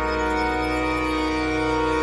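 Background music: a single sustained chord held steady with no change.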